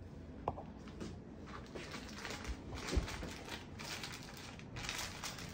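Rustling and crinkling of bandage and dressing materials being handled over an exam table, with a sharp click about half a second in and a low thump about three seconds in.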